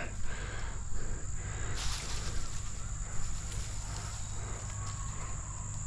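Steady high-pitched insect drone over a low background rumble, with a few soft rustles.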